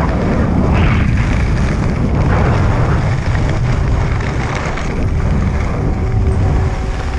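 Wind buffeting the microphone of a camera moving downhill, a steady low rumble, with the hiss and scrape of sliding over packed spring snow.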